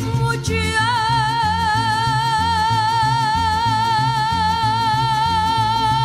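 Mexican folk music: one long high note with vibrato, held from about a second in, over a steady bass line alternating between two low notes.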